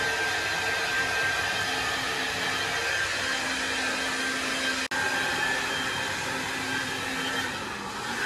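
Hair dryer blowing steadily: a rushing noise with a faint whine, broken for an instant about five seconds in.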